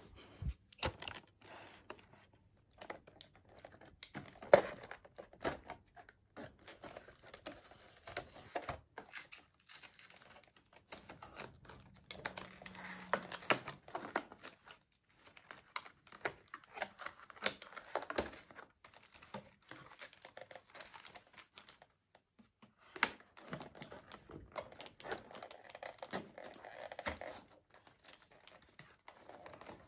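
A boxed toy's packaging being cut and pulled open by hand: plastic and cardboard crinkling and tearing, with many irregular small sharp clicks and one louder knock about four seconds in.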